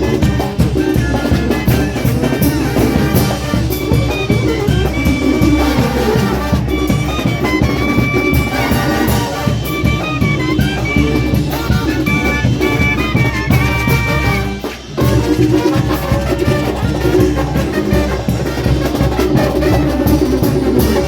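Brass band (banda) playing a Latin dance medley: brass melody over a steady drum beat, with a brief break in the sound about fifteen seconds in.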